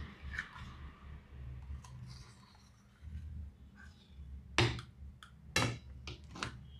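Handling noise from a steel bowl being tipped over a china plate: scattered light clicks, then a few sharp knocks, the loudest about four and a half and five and a half seconds in.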